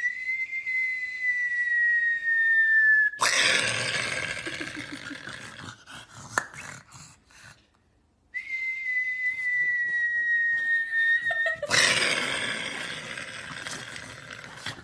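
A pug being rubbed vigorously, giving loud rustling and rubbing noise, heard twice. Each bout comes right after a long, steady, high whistle-like tone of about three seconds that falls slightly in pitch.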